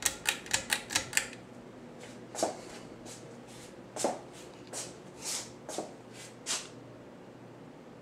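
Hampton Bay Waterton ceiling fan running on medium with a faint steady motor hum, which is hardly audible. A quick run of light clicks comes in the first second, and scattered single ticks follow over the next few seconds.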